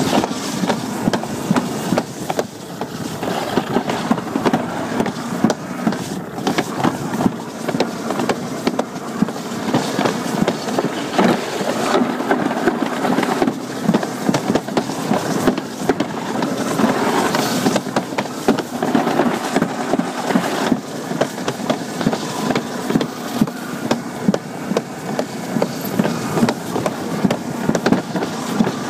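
Alpine slide sled running fast down its trough track: a continuous rumbling rattle with frequent sharp clacks.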